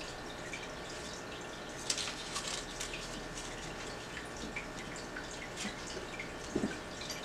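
Construction paper being folded and pressed down by hand: faint rustles and soft paper crinkles over a steady background hiss, with a few small crisp crackles about two seconds in.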